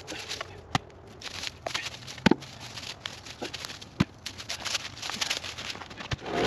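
Footsteps crunching and crackling through dry leaves and twigs, with a few sharper knocks, the strongest about two seconds in, as log rounds are handled.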